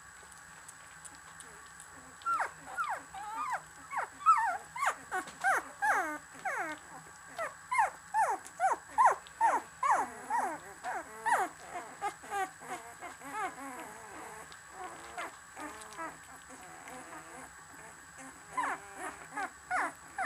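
13-day-old Samoyed puppies whimpering: a quick run of short, high squeaks, each falling in pitch, about two or three a second, starting about two seconds in and tailing off past the middle, with a few more squeaks near the end.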